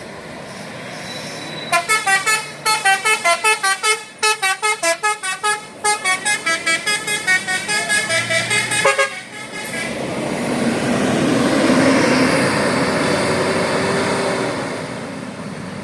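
Indonesian bus 'telolet' horn run by a DAV module, playing a fast tune of short pitched toots, about four or five a second, from about two seconds in to about nine seconds, with brief breaks twice. Then a rush of noise swells, is loudest about twelve seconds in, and fades.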